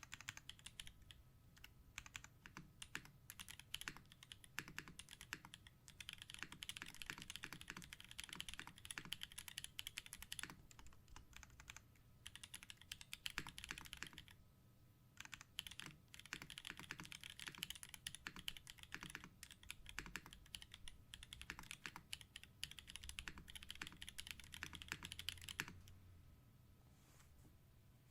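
TGR Jane V2 mechanical keyboard with tactile Holy Panda switches being typed on in quick, continuous runs of keystroke clacks, pausing briefly about halfway through and thinning out near the end.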